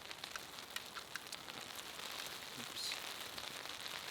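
Steady rain falling, with scattered drops ticking sharply on nearby surfaces.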